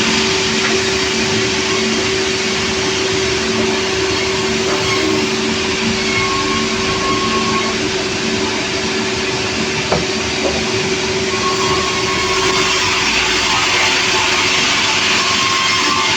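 Sawmill machinery running steadily, with one short knock about ten seconds in.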